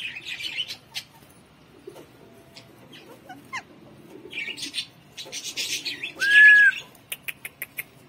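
Indian ringneck parakeet chattering in short scratchy bursts, with one loud whistled note about six seconds in, followed by a quick run of short clicks near the end.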